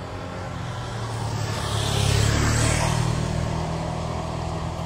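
A motor vehicle passing on the road, its engine hum swelling to a peak about two seconds in and then fading away.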